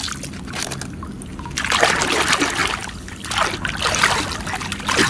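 Water splashing and sloshing as a hand swishes and scrubs a muddy plastic toy in a tub of water, in two louder bouts about one and a half and three and a half seconds in.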